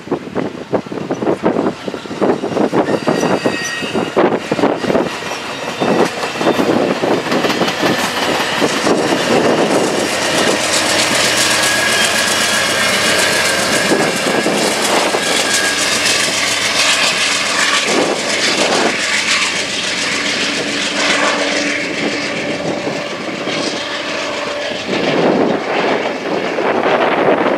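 Amtrak passenger train passing close by: bilevel cars rumbling and clattering on the rails, then the diesel locomotive pushing at the rear goes by loudly with a steady engine drone over the wheel noise.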